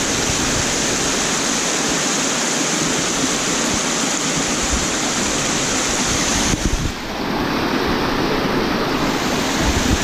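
Small rocky woodland creek rushing down a cascade over mossy stones: a steady, loud rush of water that dips briefly about seven seconds in.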